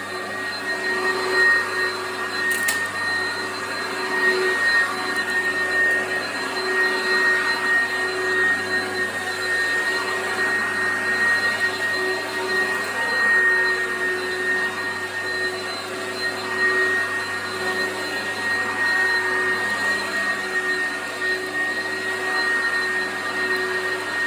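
Oreck XL commercial upright vacuum cleaner running steadily on carpet: a constant motor whine over airflow hiss. One brief sharp click about three seconds in.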